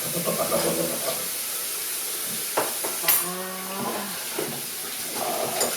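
Faint voices and a short held vocal sound, with two sharp clicks about two and a half and three seconds in, over a steady high hiss.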